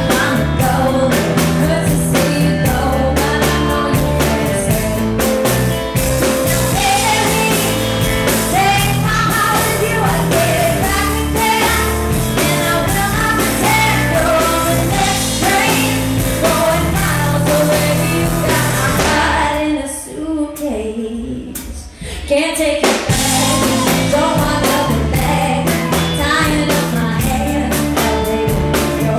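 Live band performance: a woman singing lead into a microphone over a drum kit and band. About twenty seconds in, the band stops for about three seconds, then comes back in.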